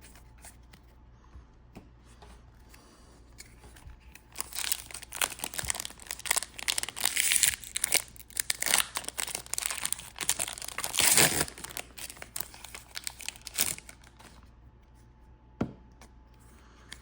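Foil-wrapped Disney Lorcana booster pack being crinkled and torn open: a dense run of crackling and tearing lasting about ten seconds, starting a few seconds in. A single light tap near the end.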